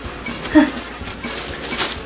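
A dog in the background gives one short bark about half a second in, the noise the speaker apologises for.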